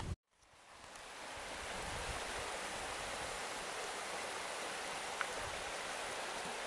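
Steady rushing of a woodland creek. It fades in over the first second or two after a short dropout, with one faint tick about five seconds in.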